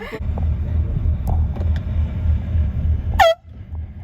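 Steady low rumble of a car driving, with road and wind noise. About three seconds in, a brief, very loud blast from a handheld air horn that slides down in pitch and cuts off abruptly.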